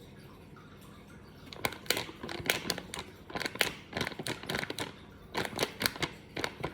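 Flour being poured a little at a time from its packet into a bowl: irregular crinkling of the packet and light ticks and taps, starting about a second and a half in.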